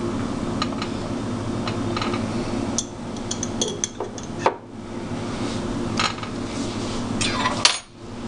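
Light metallic clinks and scrapes of emptied tuna cans knocking against a metal baking pan as they are handled. The clinks are scattered, with a quick run of them about three to four seconds in and another near the end, over a steady low hum.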